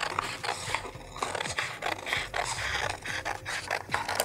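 Scissors snipping and scraping through stiff red craft sheets: a quick, irregular series of short cuts, with the sheets rustling as they are handled. Two pairs of scissors are cutting at once.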